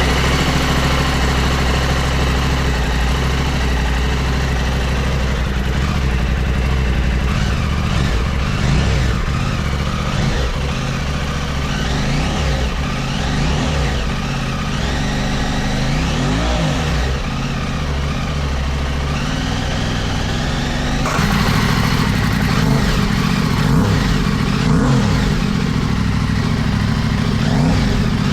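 Aprilia Tuareg 660's parallel-twin engine idling and being blipped several times, pitch rising and falling, through its stock exhaust. About 21 s in the sound changes abruptly to the same engine idling and revving through a titanium Spark Dakar slip-on with its dB killer removed.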